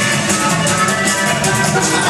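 Dance music played loud through a mobile DJ's sound system.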